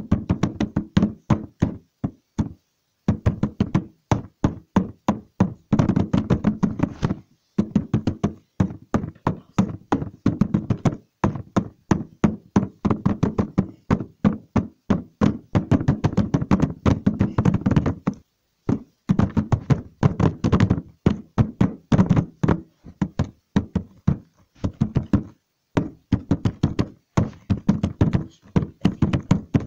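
Rapid series of knocks or taps, about five a second, in runs broken by short pauses.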